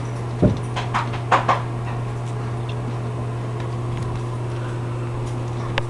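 A steady low hum with a few light knocks and taps: a dull thump about half a second in, three sharper taps over the next second, and one more click near the end.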